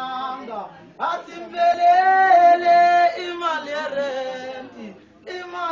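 Isicathamiya male a cappella choir singing in harmony, holding long notes, with brief breaks about a second in and near the end.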